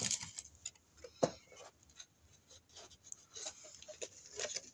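Cardstock being handled and pressed into place: scattered light taps and soft rustles, the sharpest tap about a second in.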